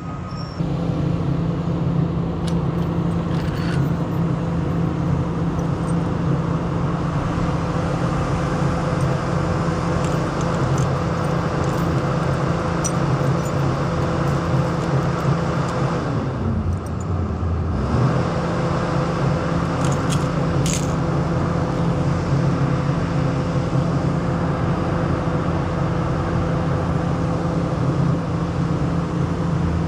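Caterpillar 320E excavator's diesel engine running steadily under work. About two-thirds of the way through the engine note dips and recovers, as it does when the engine takes hydraulic load, and a few faint metallic clinks follow.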